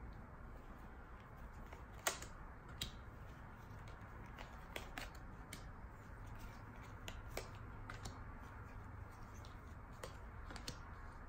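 Tarot cards being dealt from a hand-held deck and laid down into a spread on a cloth-covered table: a scattering of light, irregular clicks and taps, the sharpest about two seconds in, over a low steady room hum.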